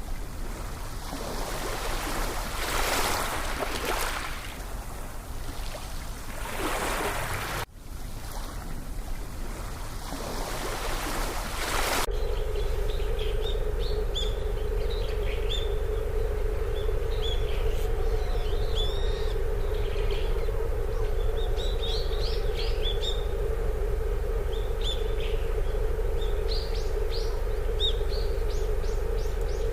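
Gusty wind noise on the microphone, then after a cut about twelve seconds in, many small birds chirping repeatedly over a steady low hum.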